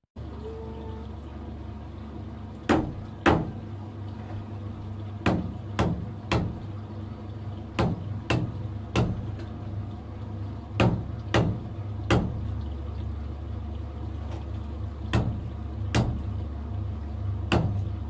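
Machete chopping at a stalk of sugar cane: a string of sharp knocks, often in close pairs, about one every half second to second, over a steady low rumble.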